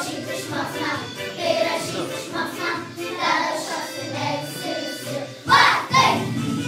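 A group of young children singing together. Near the end come two loud, short bursts, and then instrumental music starts.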